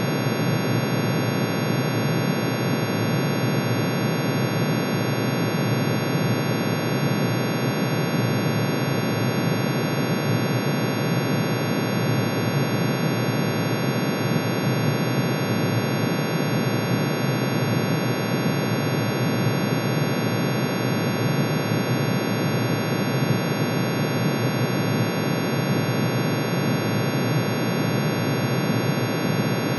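Dense synthetic drone of many steady sine tones sounding together, iron's atomic emission spectrum shifted down into the audible range, one tone per spectral line. It holds unchanged, a thick hissy chord with no beat or change.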